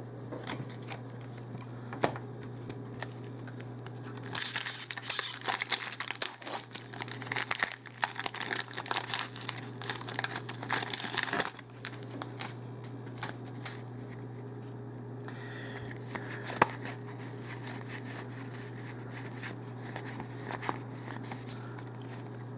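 Foil Magic: The Gathering Origins booster pack wrapper crinkling and being torn open, loud for about seven seconds from about four seconds in, followed by quieter clicks of cards being handled.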